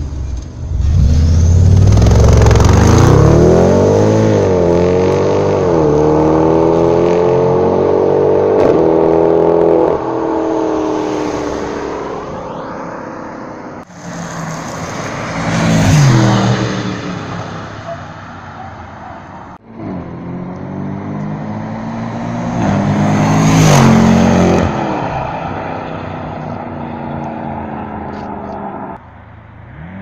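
BMW X5 F15 xDrive50i's twin-turbo V8, tuned with custom downpipes and a Supersprint exhaust. It is first heard from inside the cabin under hard acceleration, the revs climbing through several upshifts. Then it is heard from the roadside as the SUV drives past twice, each pass swelling to a loud peak and fading.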